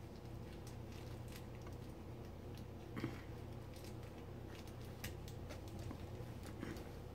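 Puppies chewing and tugging at a plush rope tug toy: faint scattered clicks and rustles over a low steady hum, with a short louder noise about three seconds in and another near the end.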